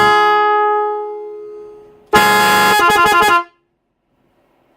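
Digital electronic car horn sounding its tones: a blast fades out over about two seconds, then a new blast starts about two seconds in, holds one chord briefly, switches to a rapid warble between two pitches, and cuts off about a second and a half later.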